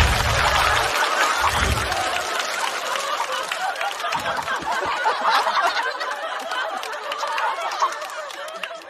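Studio audience laughing and clapping after a punchline, the laughter slowly dying down. There are a couple of deep bass thuds near the start.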